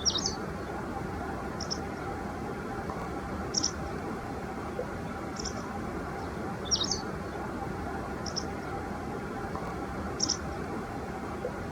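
White wagtail giving its sharp two-note "chichin" flight-type calls, a short pair of high notes repeated about every one and a half to two seconds, some eight times. Steady background noise runs underneath.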